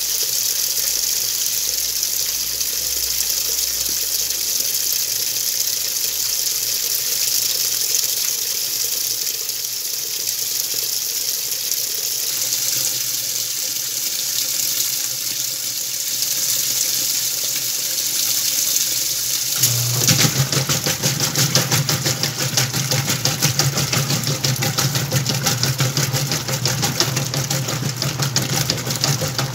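Whirlpool washing machine with water running steadily into the tub. About two-thirds of the way through, its motor starts with a steady low hum and a fast, even pulsing as it begins to wash the load of towels.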